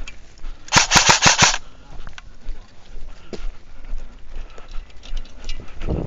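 Airsoft gun firing one quick burst of about six shots, lasting under a second, about one second in.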